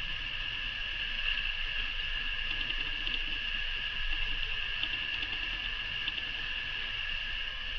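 Steady high-pitched background whine with hiss, and a few faint light taps of a fine-tip permanent pen dotting on EVA foam.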